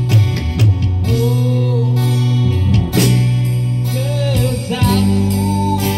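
Live band music with guitar: strummed chords over held bass notes, with a wavering melody line above.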